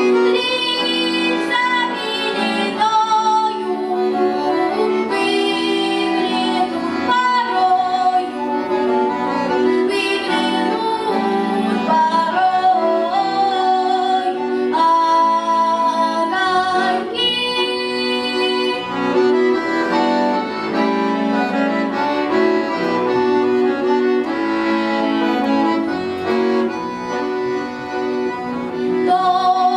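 A girl singing a song to the accompaniment of a bayan, a Russian chromatic button accordion.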